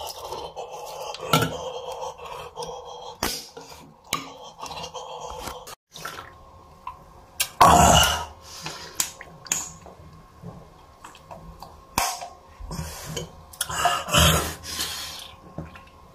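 A Red Bull can being handled and drunk from close to the microphone: scattered clicks and knocks, with two louder bursts of noise about halfway through and again near the end.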